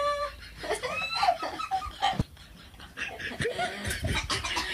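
Women laughing and squealing.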